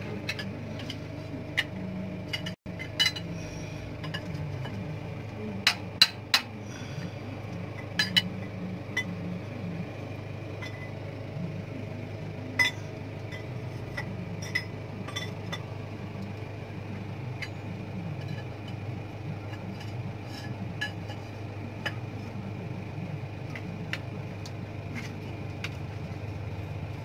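Steel hand tools clinking and tapping on metal hose fittings at irregular intervals, with a couple of louder strikes near the quarter mark, over an engine idling steadily.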